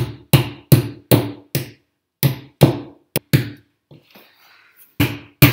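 Plastic drywall anchors being tapped into the wall with the bottom of a jar used as a hammer: about a dozen sharp knocks, each with a short ring, two or three a second, with a pause of about a second and a half before two more knocks near the end.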